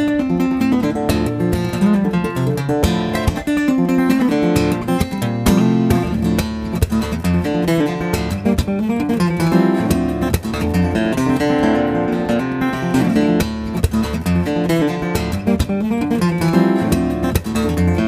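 Acoustic guitar music, plucked and strummed, with many sharp percussive taps.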